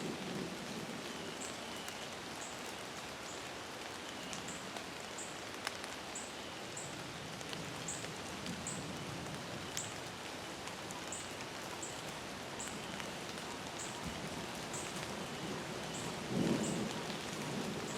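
Steady rain-like outdoor hiss, with a short high chirp repeating about every half second to a second, and a brief louder low rustle near the end.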